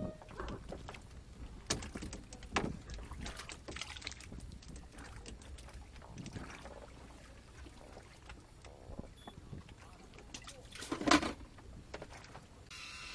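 Scattered knocks and clicks with light water sounds around a small boat, and one louder clunk about eleven seconds in.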